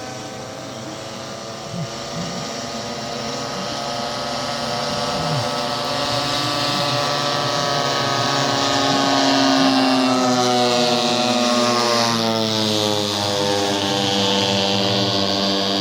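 Propeller engine of a radio-controlled model airplane flying past. It grows steadily louder to about ten seconds in, then its pitch falls as it goes by.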